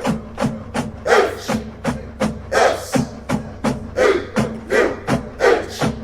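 School fight song music with a strong, steady drum beat, about three beats a second.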